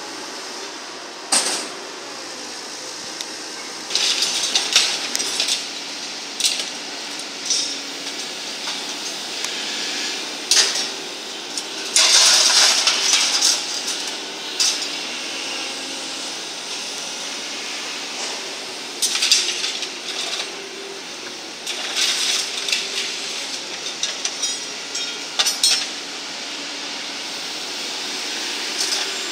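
Excavator working demolition rubble with a magnet-fitted concrete breaker attachment: repeated bursts of clattering and clinking as concrete chunks and scrap steel are crushed, sorted and dropped. The machine's engine drones steadily underneath.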